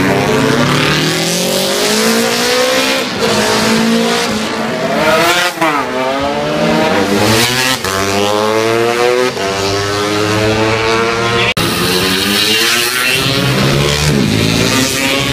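Classic racing motorcycles passing at full throttle, several engines overlapping. Their pitch keeps climbing as they accelerate and drops as they shift gear and go by.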